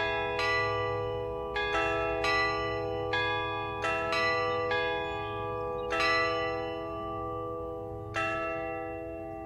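Church bells pealing: about nine uneven strokes whose tones ring on and overlap, the last about eight seconds in, then dying away.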